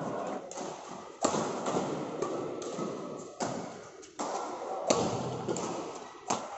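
Badminton rackets striking a shuttlecock in a doubles rally, several sharp hits about a second apart, each echoing through a large hall.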